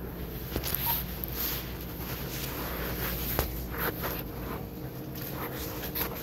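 Footsteps and the rustle of a handheld phone moving about inside a shop, over a steady low background hum, with a short electronic beep about a second in.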